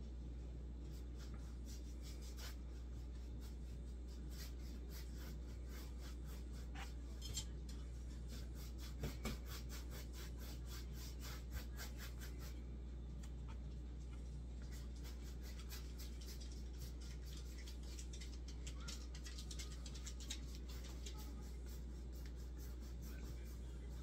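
Light rubbing and scratching with many small ticks from painting supplies being handled: a plastic palette tray and a brush on a canvas, with a few louder clicks midway. A steady low hum runs underneath.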